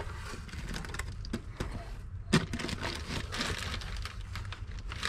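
Cardboard box flaps and the plastic bag around a brake drum being handled: rustling and scraping with scattered clicks, and one sharp click about two and a half seconds in.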